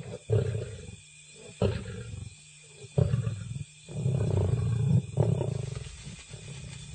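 Lion growling in about five short outbursts, each starting sharply and tailing off, the later ones weaker. The lion is growling at a warthog that stays holed up in its burrow.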